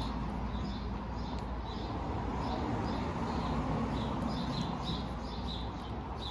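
Sparrows chirping: a string of short high chirps, about two or three a second, over a steady low background rumble.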